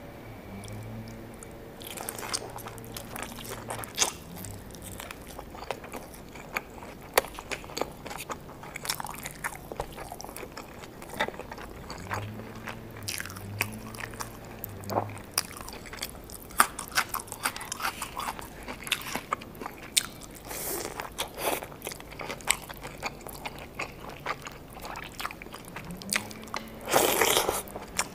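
Close-miked crunching and chewing of crisp-fried birria tacos: repeated sharp crackling bites between stretches of quieter chewing. A loud, dense crunch comes near the end.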